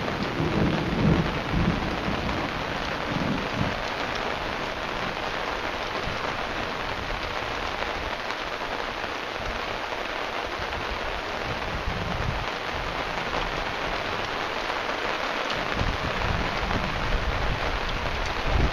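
Thunderstorm: steady rain falling, with low rolling thunder rumbling in the first few seconds and again near the end.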